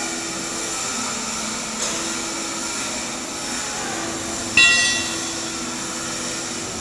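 Steady hiss and crackle of a stick-welding arc burning an E7018 electrode, over a constant machinery hum. One sharp, ringing metal clang comes about four and a half seconds in.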